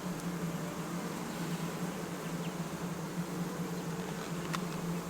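A honeybee colony in an opened hive buzzing: a steady, even hum with no break.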